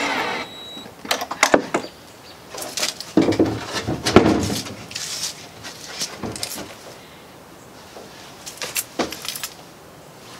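Hinged wooden lid of a home-built rooftop tent being lowered shut on its piano hinge: knocks and clatter of wood on wood, loudest about four seconds in, then a few faint knocks.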